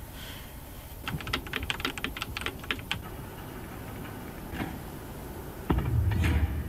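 Computer keyboard keys clicking in a quick run of about a dozen keystrokes over two seconds. A low thump follows near the end.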